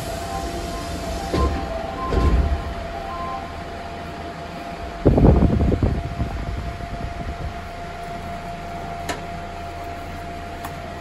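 Interior of a Nagoya subway 6000 series car stopped at a station with the doors opening: a steady ventilation hum with a constant tone, a few short beeps and dull knocks in the first three seconds, and a louder rumble lasting about a second around five seconds in.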